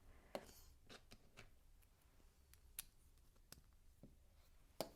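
Small plastic LEGO pieces being handled, giving a handful of sharp, separate clicks against near silence, the loudest one near the end.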